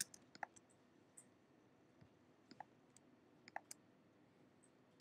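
Faint computer mouse clicks, a scattered handful of single and paired clicks, as layers are selected and a right-click menu is opened.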